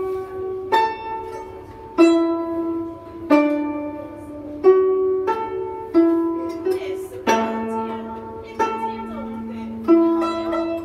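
Piano played slowly, a simple melody of single notes struck about once every second or so, each ringing and fading before the next. Lower notes join the melody in the second half.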